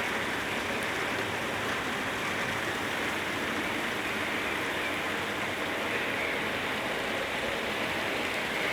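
Steady rushing noise of monsoon floodwater, even and unbroken.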